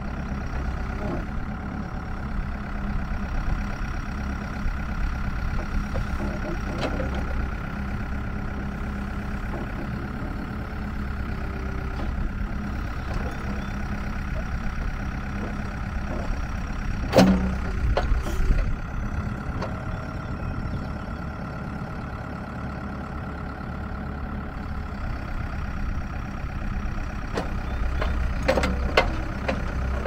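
Ford 575E backhoe's diesel engine running steadily while the backhoe arm and bucket are worked. There are sharp metallic clanks, two a little past halfway and a few more near the end.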